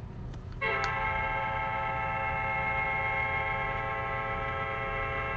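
A steady held chord of several tones starts suddenly about half a second in and holds unchanged, over a low background hum.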